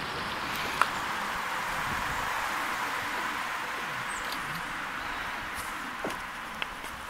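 Frozen lake with the sound turned up: a steady hiss with one sharp click about a second in and two fainter clicks near the end. The sound is taken for water moving under the ice.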